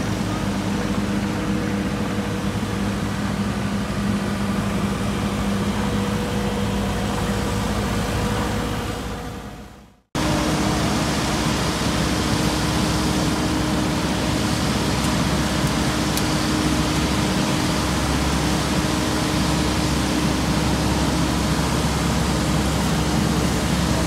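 Heavy diesel engines of an XCMG asphalt paver and a dump truck running steadily with a constant hum. The drone fades out about nine seconds in, drops to a moment of silence, then a steady engine drone resumes.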